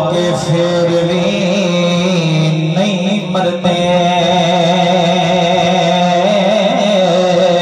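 A man's voice singing a naat rubai unaccompanied into a microphone over a PA system, drawing out long wavering notes with a long steady held note through the middle.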